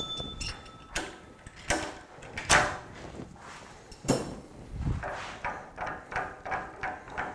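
Metal clinks and clunks of a Hurricane HTC100 scroll chuck and turning tools being handled at a stopped wood lathe. A ringing metal tone fades in the first second, a few separate clunks follow, and near the end comes a run of small quick knocks as the chuck is turned by hand on the spindle.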